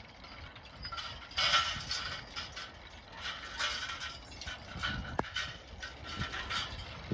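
Draft-horse harness and a horse-drawn implement rattling and clinking in irregular bursts, with one short squeak about five seconds in.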